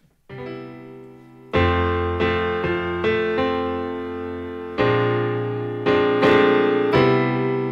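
Keyboard playing the opening chords of a song: a soft chord just after the start, then louder chords struck every half second to a second and a half, each held and fading slowly.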